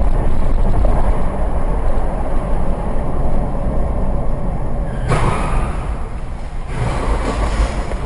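Vehicle on the road: a steady low rumble of engine and road noise, with two louder rushes of noise, each lasting a second or so, starting about five and about seven seconds in.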